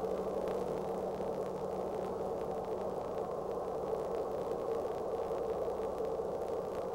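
Tugboat engine running with a steady drone and a constant hum under hiss, with no change in speed.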